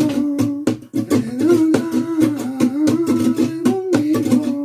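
Nylon-string flamenco guitar with a capo strummed in a rumba rhythm, quick sharp strums several times a second. Over it a man's voice sings the melody.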